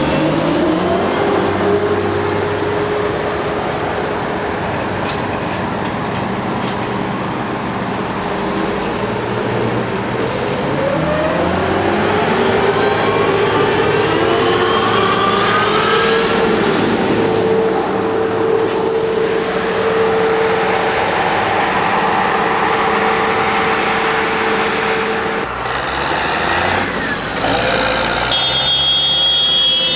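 Diesel harvest machinery running: combine harvesters and tractors with chaser bins, a steady engine drone under a clattering mechanical din. Around the middle, engine pitch rises several times as machines speed up, and a short steady high tone sounds near the end.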